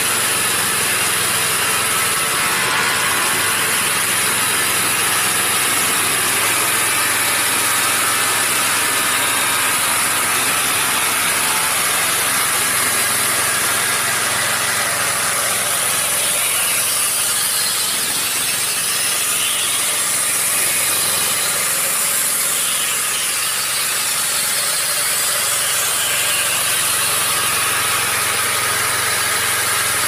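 Small diesel engine of a portable chain sawmill running steadily with no log in the cut, along with a dense mechanical clatter from the machine.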